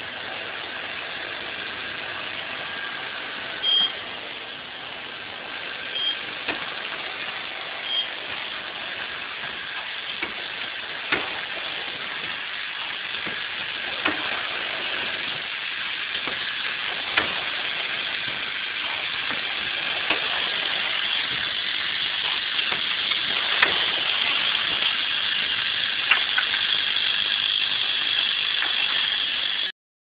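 Automatic pad printing machine running: a steady mechanical hiss and hum, with a sharp knock about every three seconds as the machine cycles.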